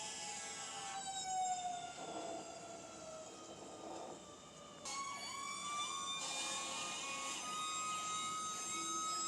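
Fire truck siren sliding slowly down in pitch. About five seconds in, fire truck air horns start blasting abruptly over a siren whose pitch climbs slowly.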